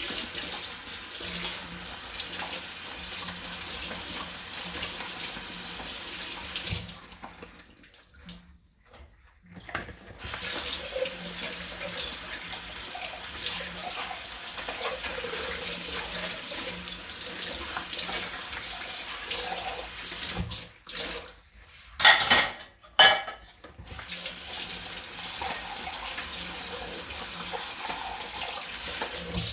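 Water running from a kitchen tap into a sink while dishes are washed. The flow stops twice for a few seconds, and a few sharp clinks of dishes come about two-thirds of the way through.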